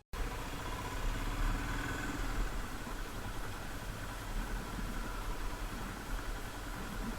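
A motor vehicle engine idling steadily, with a low rumble under a broad hiss.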